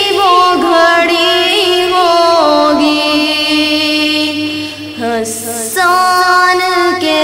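A boy singing an Urdu naat unaccompanied in a high voice, with long held notes and ornamented turns, and a short breath about five seconds in.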